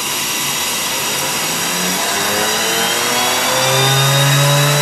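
Small steam turbine, a turbo impeller driving a small DC motor as generator, spinning up with a whine that rises steadily in pitch from about two seconds in. Under it runs a steady rushing hiss of steam and the propane turkey-cooker burner.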